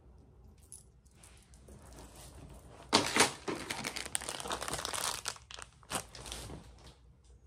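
Packaging crinkling as it is handled. It starts with a sudden loud crinkle about three seconds in, goes on for about three seconds, and ends with one more sharp crackle.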